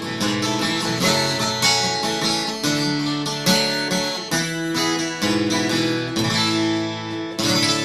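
Acoustic guitar picked and strummed as an instrumental outro to a folk song, ending on a final strummed chord near the end that is left to ring.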